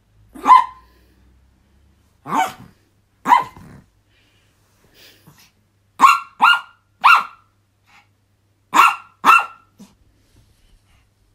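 Chihuahua barking eight times with short, sharp, high-pitched barks: a single bark, then a pair, then a quick run of three, then a final pair.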